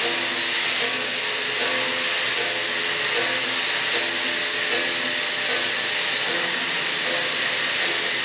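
Mechanism of a kinetic sculpture built from bicycle wheels and frames, running with a steady whirring, rubbing hiss that pulses about two to three times a second, with short tones recurring through it.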